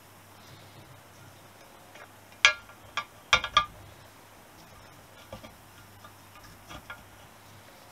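Sharp metallic clicks and clinks of tools and engine parts being handled during motorcycle engine work. A few loud ones come close together in the middle, and softer ticks follow a little later.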